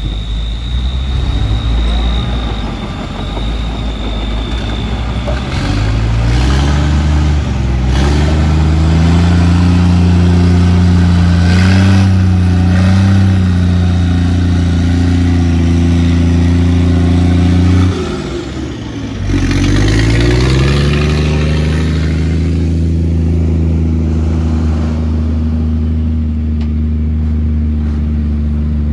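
Heavy diesel engine of earthmoving equipment revving up and holding high revs under load. The revs drop briefly about two-thirds of the way through, then climb back up and hold steady.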